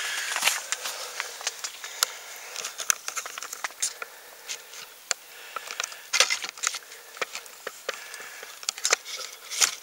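Camera handling noise: irregular clicks, crackles and rustles as the camera is moved and repositioned, with a couple of louder knocks about six seconds in and near the end.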